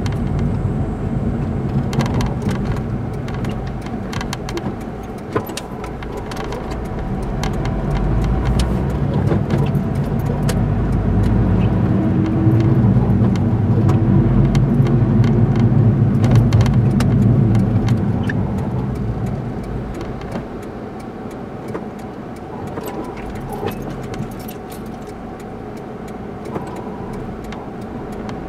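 Car engine and road noise heard from inside the cabin while driving, swelling louder for about ten seconds in the middle and then easing off. Scattered light clicks and rattles run through it.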